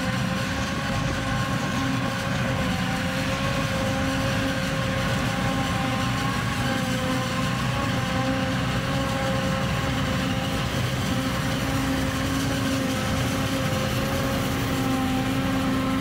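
John Deere 7580 self-propelled forage harvester chopping corn for silage, its engine and cutterhead running steadily under load with a steady whine, together with the truck and trailer driving alongside to catch the chopped corn.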